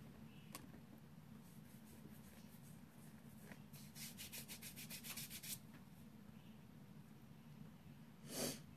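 Faint handling noises close to the microphone: quiet rubbing, a few light clicks, and a quick run of about a dozen small ticks in the middle. A short breath-like hiss comes near the end.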